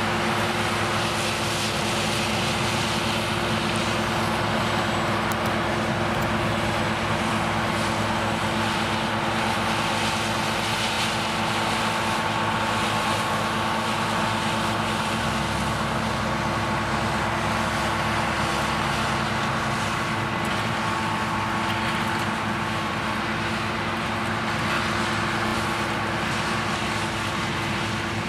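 Claas Lexion 560 combine harvester running steadily while threshing soybeans: a steady diesel drone with the hum of the threshing machinery. A faint high whine joins about eight seconds in, and the sound grows slightly fainter near the end as the combine moves away.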